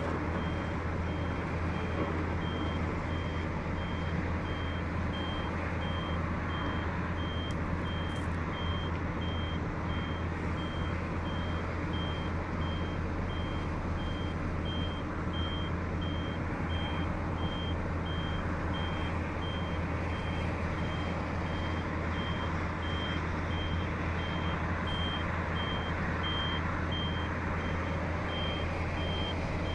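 A construction machine's reversing alarm beeping at an even pace on one high tone, over the steady drone of heavy diesel machinery running.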